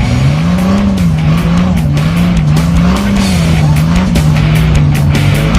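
Loud driving music with a steady beat and a low line that rises and falls in a repeating pattern.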